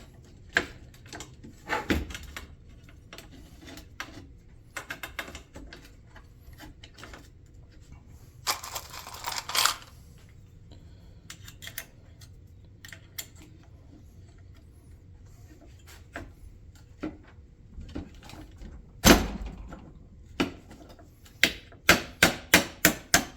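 Hand work on a console shifter and its cable: scattered metal clicks and knocks, a scraping rustle about nine seconds in, a loud knock a few seconds before the end, then a quick run of clicks.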